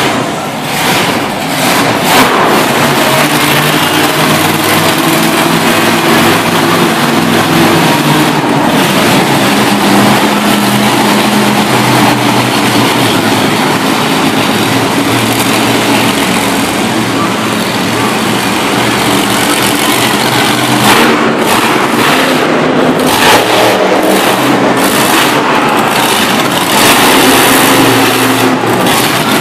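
Stinger monster truck's engine running loud and revving up and down repeatedly as the truck drives.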